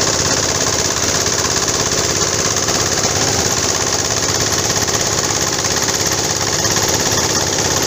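Log wood-crushing machine (wood shredder) running steadily, with a dense, even mechanical noise from its drive and rotor.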